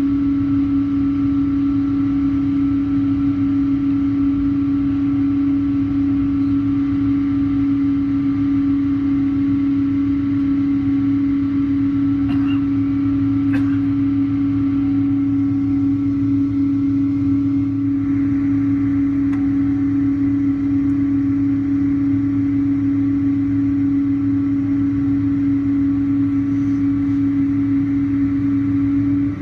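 Steady cabin drone inside a Boeing 777-200 taxiing slowly after landing, heard from a window seat over the wing: the engines at idle with a constant low hum. A couple of faint clicks come about twelve to fourteen seconds in.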